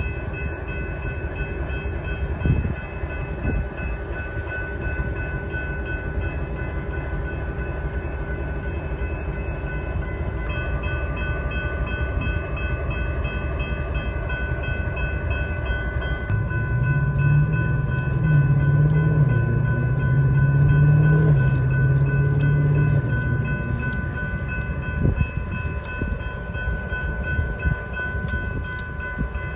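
Train running by on the tracks: a steady low rumble under a continuous high ringing tone, with a deeper hum swelling louder about halfway through.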